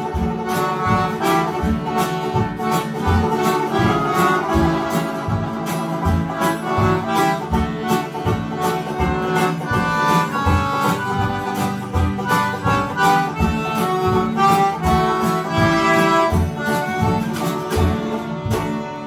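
Small acoustic folk band playing a lively tune: a concertina carries the melody over strummed acoustic guitars and a plucked upright double bass that keeps a steady beat.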